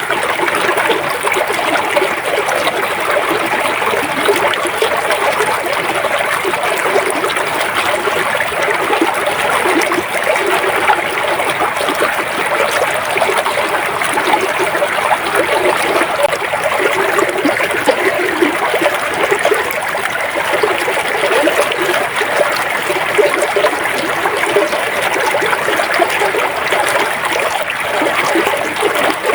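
Flowing river water: a steady, unbroken rush of moving water.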